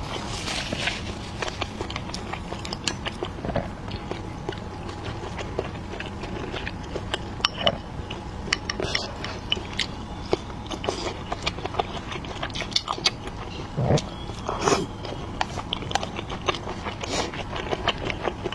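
Close-up eating sounds: chewing dumplings, with many small wet clicks and smacks of the mouth and a few louder ones near the end.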